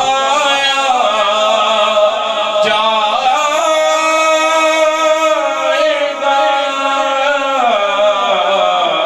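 A man singing an Urdu devotional kalam (naat) in a melodic chant. He holds long drawn-out notes for most of the time, then moves into a new phrase near the end.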